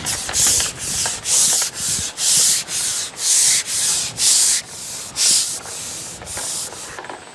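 Preston Innovations Response margin fishing pole being slid out hand over hand: about a dozen rubbing strokes, roughly two a second, as the pole slides through the hands and over its rest.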